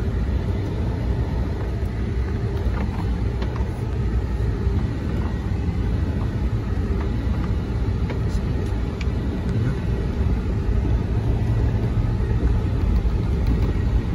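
A vehicle driving slowly over a rough, wet dirt track, heard from inside the cab: a steady low rumble of engine and tyres, with a few faint clicks and knocks.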